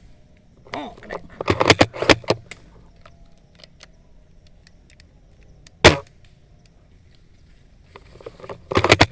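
Airsoft guns firing: a quick string of about five shots a second and a half in, a single loud shot about six seconds in, and another quick string near the end, with fainter, more distant shots in between.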